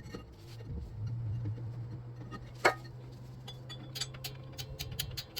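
Small metal clicks and taps as a rear drum brake is adjusted, the adjuster turned a few clicks at a time and the drum tried on. One sharper clink comes about two and a half seconds in, then a run of quick clicks near the end, over a steady low hum.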